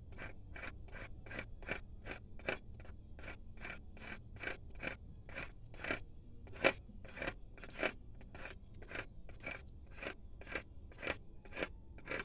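Steady clicking, about three clicks a second, as the shaft of a Melling high-volume small-block Chevy oil pump packed with assembly grease is turned clockwise by hand; the pump has not yet caught and started drawing the grease down.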